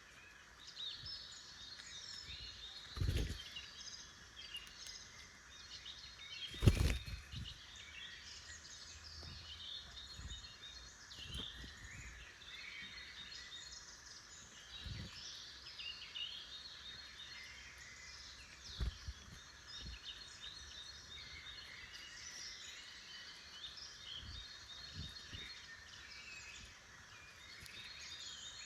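Dense chorus of woodland songbirds singing and chirping without a break. A few low thumps break through, the loudest about seven seconds in.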